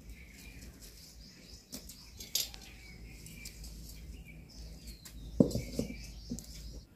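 Chicks cheeping in short high chirps. About five and a half seconds in, a metal kadhai is set down on a clay stove with a dull knock, followed by a couple of lighter knocks.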